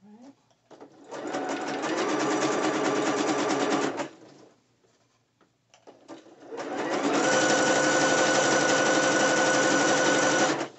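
Domestic electronic sewing machine stitching in two runs, one of about three seconds and one of about four: each starts with a short rising whine as the motor speeds up, runs steadily, then cuts off. A few light clicks sound in the pause between the runs.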